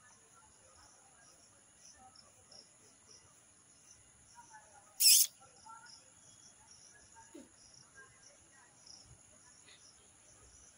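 Crickets chirring steadily, a continuous high-pitched pulsing trill. About five seconds in, a brief loud hiss cuts in and stops.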